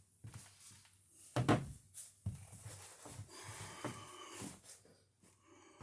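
A few separate knocks and clunks of handling, the loudest about one and a half seconds in.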